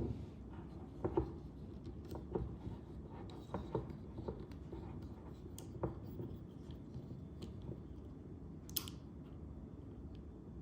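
Light clicks and knocks of small metal panorama-head parts being handled and fitted together, irregular through the first half, with a brief hiss near the end.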